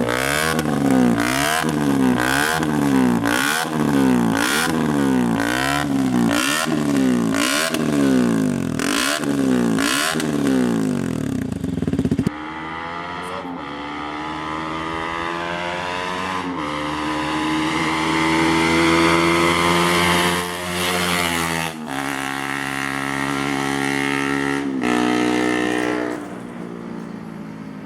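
KTM Duke 125 single-cylinder four-stroke engine with an aftermarket sport exhaust, its throttle blipped about once a second in a rapid series of revs. About twelve seconds in the sound cuts abruptly to steadier engine running that rises and falls slowly in pitch, with more sudden cuts later on.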